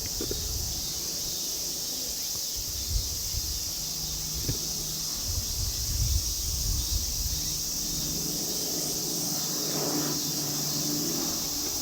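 Steady high-pitched drone of insects with gusts of wind rumbling on the microphone. From about seven seconds in, a faint steady hum of a distant C-146A Wolfhound's twin turboprops joins it.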